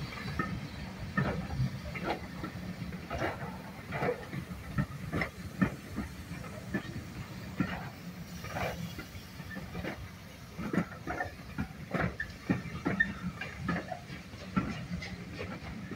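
Coaches of a steam-hauled passenger train rolling slowly past, their wheels clicking irregularly over the rail joints above a steady low rumble, with steam hissing from the locomotive.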